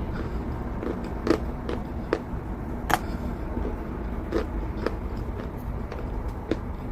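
Close-up crunching of chalk being bitten and chewed: irregular sharp crunches, a loud one about three seconds in, over a low steady background hum.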